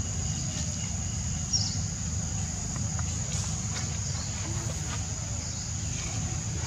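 Insects trilling steadily at a high pitch over a constant low rumble, with a short high chirp about a second and a half in.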